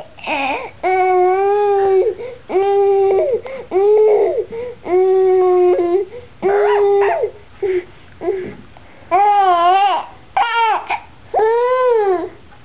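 Baby vocalizing happily in a string of about ten drawn-out, high-pitched 'aah' calls with short pauses between, the last few rising and falling in pitch.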